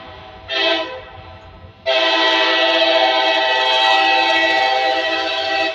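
Freight locomotive's air horn sounding a chord of several notes for a grade crossing: a short blast about half a second in, then a long blast from about two seconds in that cuts off at the end, closing the long-long-short-long crossing signal.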